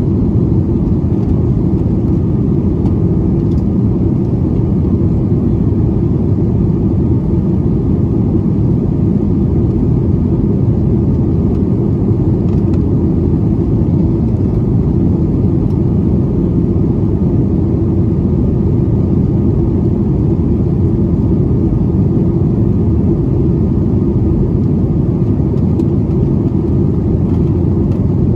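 Steady engine and airflow noise inside the cabin of a Boeing 737 MAX 9 with CFM LEAP-1B turbofans, climbing out above the clouds. The noise is loud and even, low and dull in tone, with no change in level.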